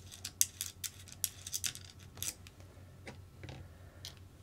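Small plastic and metal RC kit parts and hand tools being handled on a workbench: quick, irregular clicks and taps, busiest in the first couple of seconds and sparser after.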